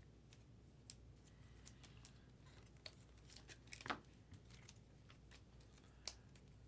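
Near silence, with a few faint clicks and a short rustle about four seconds in, from trading cards being handled.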